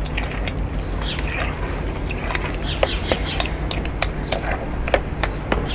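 A spoon stirring a thick quark-and-sour-cream mix in a metal bowl, clinking and scraping against the bowl in irregular sharp clicks.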